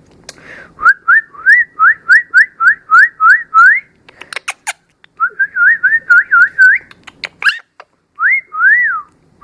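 Pet bird whistling: a quick run of about ten rising whistled notes, then a wavering phrase, then two long rising-and-falling whistles, with sharp clicks in the gaps.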